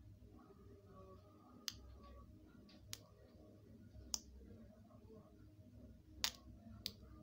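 Small electrical sparks as a bare 12 V DC supply wire is tapped against a terminal: about six faint, sharp clicks at irregular intervals, the loudest a little after six seconds in.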